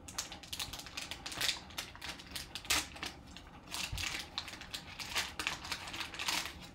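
Foil pouch of a trading-card pack being torn open and crinkled by hand: irregular crackling and rustling with sharp clicks.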